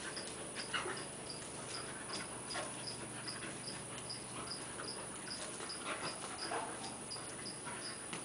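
Two dogs, a red heeler and a schnauzer, play-wrestling, with short scattered dog vocalizations and breathing noises. An insect chirps steadily about twice a second in the background.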